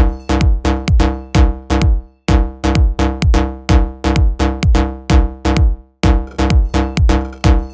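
Electronic music: a drum-machine beat of sharp, evenly spaced hits, about four a second, with deep kick notes that drop in pitch, over steady synth tones. The beat breaks off briefly twice.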